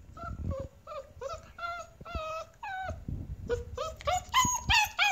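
Puppy whining and whimpering: a string of short, high-pitched cries that rise and fall, coming faster and louder in the second half. It is a crated puppy crying at being left alone.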